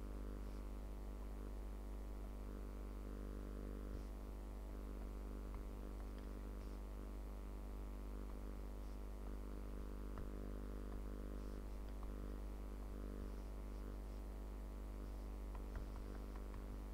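Steady low electrical hum from the recording chain, with a few faint, scattered ticks.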